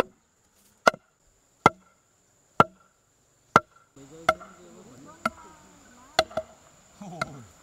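Food being chopped with a heavy knife: single sharp strokes roughly once a second, about ten in all.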